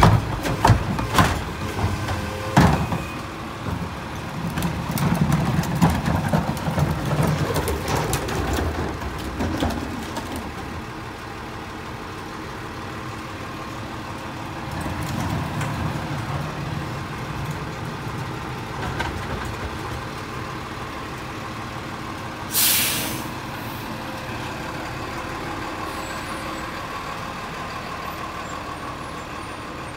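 Autocar Heil rear-loader garbage truck at work: a recycling cart bangs several times against the tipper near the start, then the engine and packer hydraulics run louder for several seconds. Later, a short air-brake hiss, and the engine runs on as the truck moves off.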